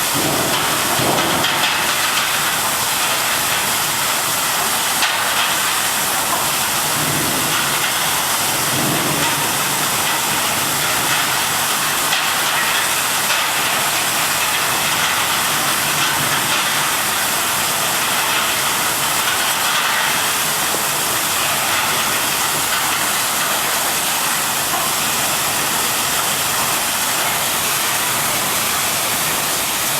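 Drum brush vegetable washing machine running, with a steady rushing hiss of spraying water.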